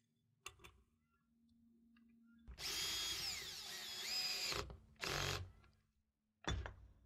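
Power drill running in bursts while tightening the tilt-leg U-foot fastening onto the standoff: one run of about two seconds whose whine rises and falls with motor speed, then two short bursts.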